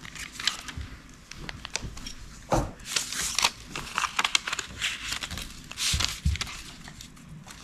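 Origami paper rustling and crinkling as it is folded and creased flat by hand, with a few soft thumps of hands pressing on the floor.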